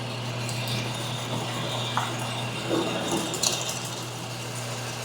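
Drill press running steadily with a 1.5-inch bit, drilling out the plastic thumb insert and plug material from a bowling ball, with a few clicks and scrapes from about two seconds in.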